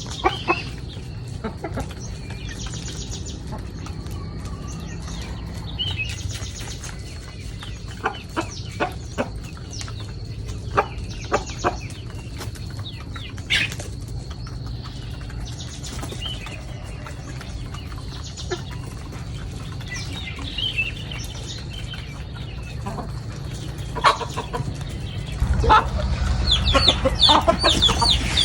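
Chickens clucking, with many scattered sharp taps and clicks over a steady low hum and a thin steady high tone. The clucking and tapping grow busier and louder near the end.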